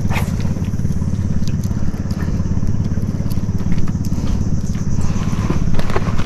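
Small boat engine running steadily with an even, rapid low pulse, and a few light clicks over it.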